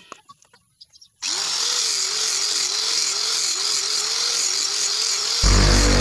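Electric angle grinder running with its disc against a block of wood, shaping it; its whine dips and recovers about twice a second as the disc is pressed into the wood. It starts about a second in, after a few faint clicks.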